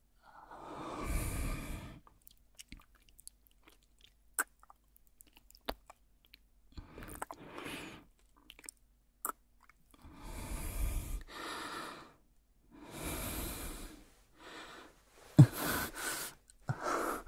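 A man breathing slowly and audibly close to the microphone, a breath every second or two with gaps between, among scattered small clicks; a sharp loud smack about fifteen seconds in.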